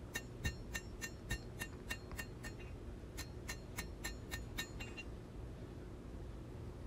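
Blacksmith's hand hammer striking hot steel on an anvil, forging the distal taper along a knife blade's spine: about three blows a second, each with a light metallic ring. The blows stop about two-thirds of the way through.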